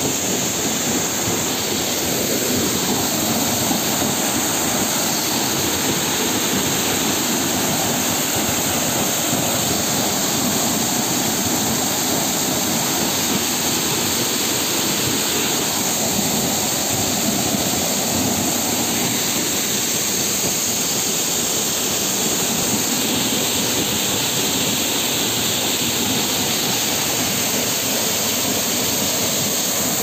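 Steady rushing of a waterfall plunging into a shallow rocky pool, with the stream running from it over stones.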